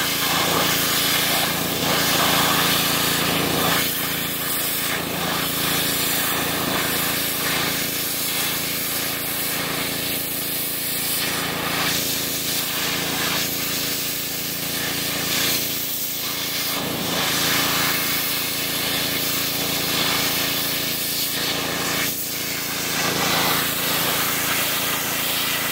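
Pressure washer running steadily, its water jet spraying and blasting against a deer hide to strip off flesh, the spray noise swelling and easing as the jet moves over the skin.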